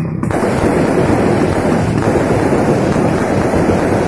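New Year fireworks exploding overhead in a continuous, rapid crackle of bangs that starts in earnest about a quarter second in.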